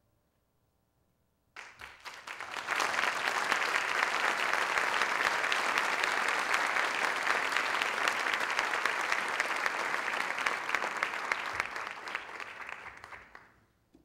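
Concert audience applauding a solo piano performance: after a moment of silence the clapping breaks out suddenly about a second and a half in, swells over the next second, holds steady, and fades away near the end.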